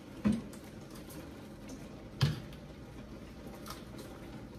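Two sharp knocks about two seconds apart, with a few fainter clicks between: kitchen items being set down as they are put away.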